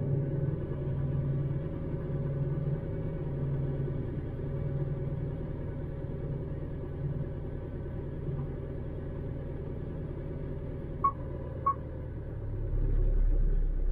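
Mitsubishi 4M41 3.2-litre four-cylinder common-rail diesel idling, heard from inside the cab during small injection quantity learning, its note swelling and easing as the ECU adjusts each injector. Two short beeps come about 11 seconds in, and the low rumble grows near the end.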